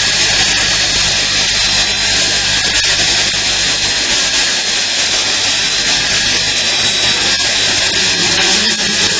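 High-speed dental handpiece with a flat-end tapered diamond bur running steadily as it grinds down the incisal edge of a central incisor in a crown preparation: a thin high whine over a steady hiss.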